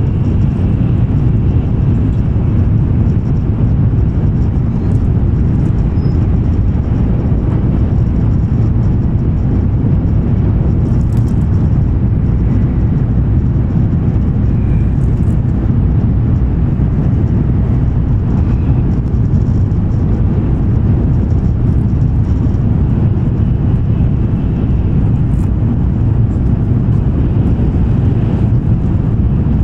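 Steady low rumble heard inside the passenger cabin of an N700-series Shinkansen running at high speed without stopping.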